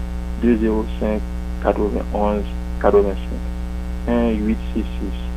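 A steady low electrical hum runs under everything, with short broken stretches of a voice over it.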